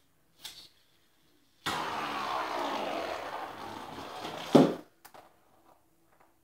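BeyRaiderz Guardian Leviathan spinning-top toy ripped from its launcher about two seconds in, whirring loudly across the hard floor as it slows, then ending in a loud knock and a few small clicks.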